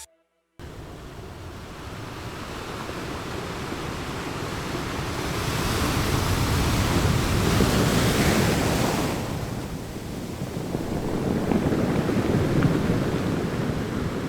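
Sea waves breaking on a shore: a steady rush of surf that begins about half a second in and swells twice, once around the middle and again near the end.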